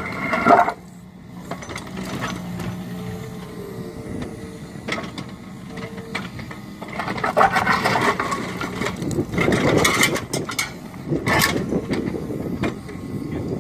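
Mini excavator running, its engine humming steadily while the arm works, with a brief hydraulic whine in the middle. Between about 7 and 12 seconds there are several loud bursts of the bucket scraping and knocking through broken concrete rubble.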